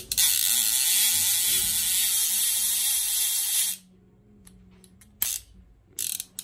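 Right-hand level-wind sea-fishing reel with a line counter whirring steadily as it spins for about three and a half seconds, then stopping abruptly. A few light clicks follow as the reel is handled.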